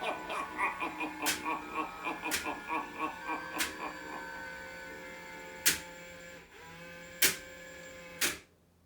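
Henry Hustle animatronic clown finishing its routine: a pulsing, pitched sound from its built-in soundtrack fades over the first few seconds over a steady mechanical hum. Three sharp clinks follow, from the pop-up mechanism's spring as the head retracts, and everything stops abruptly shortly before the end.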